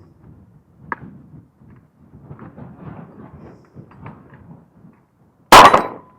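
One loud shot from a Sig P365 9mm pistol near the end, after a few seconds of wind buffeting the microphone and a sharp click about a second in.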